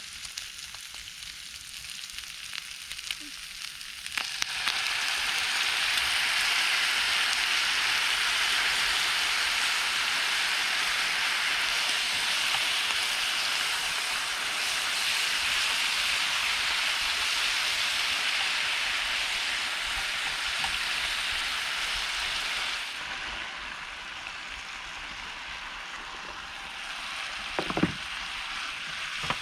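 Food sizzling in a hot frying pan. It gets suddenly louder about four seconds in, eases off about three quarters of the way through, and there is a short knock near the end.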